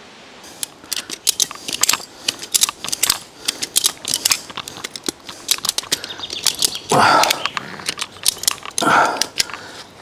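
Climbing harness gear clicking and clinking as a man climbs a tree trunk: a rapid, irregular scatter of sharp metallic clicks, with two louder rushing noises about seven and nine seconds in.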